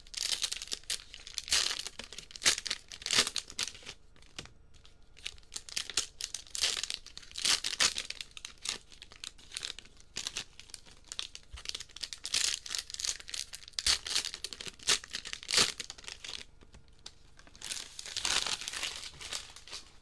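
Cellophane wrappers of Bowman baseball card value packs crinkling and tearing as they are ripped open and handled, in irregular bursts, with a short lull near the end.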